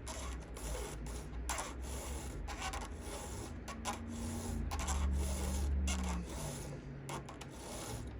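Hand file rasping across a chainsaw chain's cutter teeth in repeated strokes, about one a second, as the chain is sharpened.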